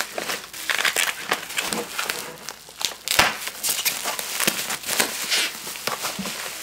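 Bubble wrap crinkling and rustling in the hands as a paintball loader is unwrapped, with irregular crackles and one sharp snap about three seconds in.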